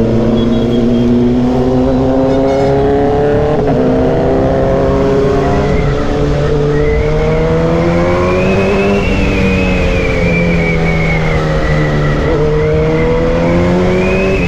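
Sport motorcycle's four-cylinder engine running under way, its pitch climbing and falling several times as the throttle is opened and eased, over a steady rush of wind.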